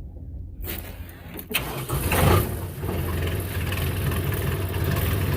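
Kubota M6040 tractor's diesel engine starting up. It catches about two seconds in and then runs steadily.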